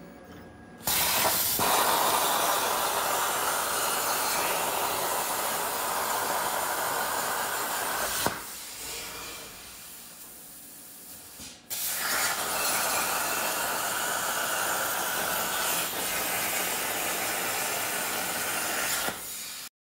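Plasma cutter arc hissing steadily as the torch of a CrossFire XR CNC plasma table cuts steel plate. There are two cuts of about seven seconds each, with a quieter gap of about three seconds between them.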